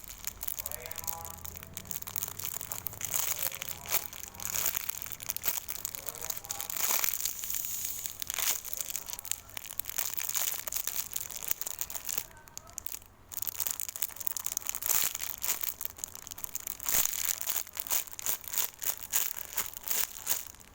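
Crinkling, crackling rustle of a cake-shaped squishy toy being handled and squeezed, with irregular small crackles throughout.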